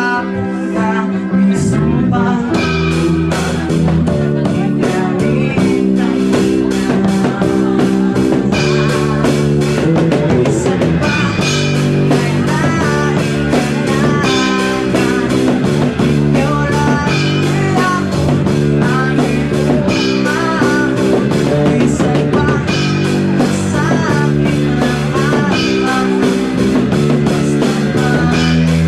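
Rock song with guitar, a steady beat and a singing voice.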